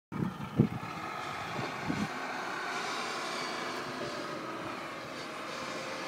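Snowplow dump truck's engine running with a steady drone. A few low thumps come in the first two seconds, the loudest about half a second in.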